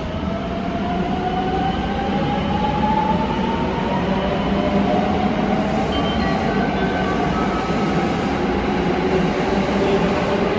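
A JR West 281 series limited express pulling away and accelerating, its Toshiba GTO-thyristor VVVF inverter whining in several tones that rise in pitch over the first few seconds, then hold higher. Beneath the whine runs the steady rumble of the train moving, echoing in an underground station.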